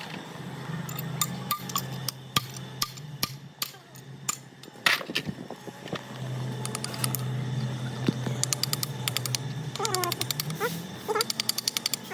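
Scattered sharp clicks and knocks of hand tools and metal parts, with two quick rattling runs of clicks in the second half, over a steady low hum.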